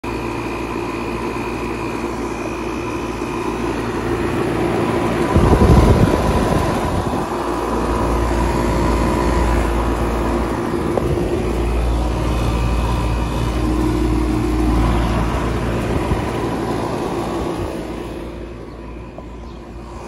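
2003 Fedders central air conditioner's outdoor condenser unit running: a steady hum from the compressor and condenser fan. There is a brief louder rumble about five seconds in, and the hum fades near the end.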